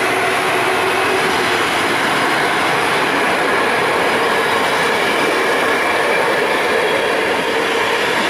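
Passenger train coaches rolling past: a steady, loud rumble and rush of steel wheels on the rails, with faint steady tones over it.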